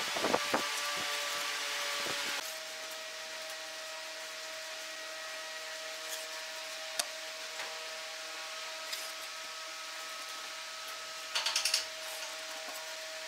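Steady hum of a machine or fan running in a workshop, with a few light taps as the pine boards are handled. Near the end comes a short burst of quick scratching strokes of a pencil marking the wood.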